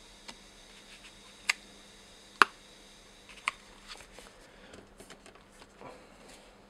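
Handling of a black e-reader cover for a Sony PRS-T3: three sharp clicks, the second much the loudest, then lighter ticks and soft scuffing as the cover is opened out.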